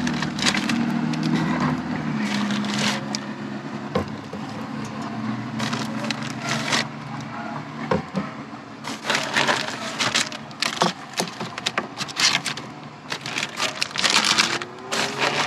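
Bags and food packages rustling, crinkling and knocking as they are handled and stacked into a small pantry box, in irregular clusters.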